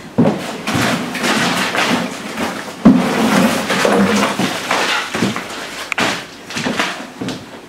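Shredded scrap-tire rubber rustling and scraping as a large bag of it is carried in and tipped out onto a tarp, with a sharp knock about three seconds in.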